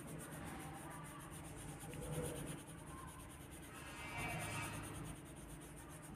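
Pencil shading on a paper card: quick, even back-and-forth strokes scratching across the paper as an area is coloured in.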